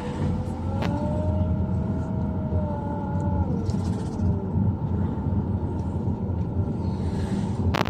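Car driving in city traffic: a steady low rumble of engine and road noise, with a faint whine that drifts slowly up and down in pitch. A sharp click sounds about a second in, and a couple more near the end.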